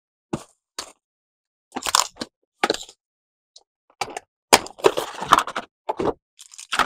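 Action figure packaging being handled and opened: plastic and cardboard crackling in short, irregular bursts, busiest about two thirds of the way through.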